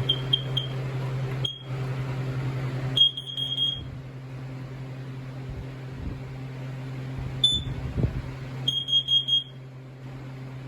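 Tamper-free plug-and-play household alarm under test, sounding high-pitched electronic beeps at an uneven pace: a quick run of short chirps at the start, then single short chirps and two longer beeps of nearly a second each.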